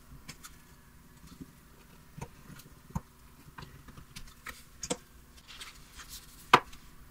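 An awl piercing sewing holes through the folded paper of a pamphlet in a wooden punching cradle, with paper being handled. The sound is scattered light clicks and ticks a second or so apart, and the sharpest click comes near the end.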